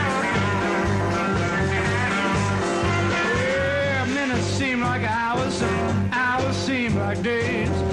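Blues-rock band music: a steady bass line under bending lead lines.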